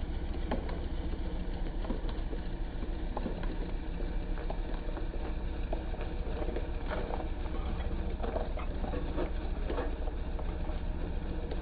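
Portable fire pump's small engine running steadily at idle. Scattered clanks and knocks come from hoses and couplings being fitted to the pump, busiest a little past halfway.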